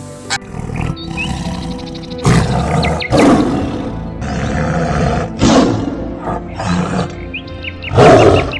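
A large wild animal roaring in several harsh bursts, the loudest near the end, over background music.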